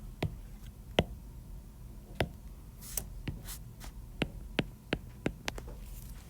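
Irregular sharp clicks and taps, about a dozen spread over six seconds, over a faint low hum.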